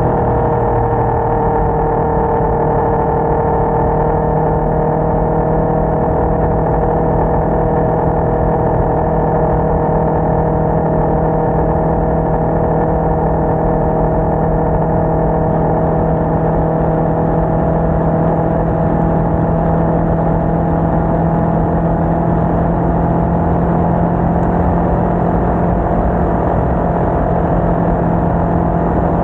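Sport motorcycle's engine running at a steady cruise, its pitch holding nearly even and creeping slowly upward, with steady wind rush from riding.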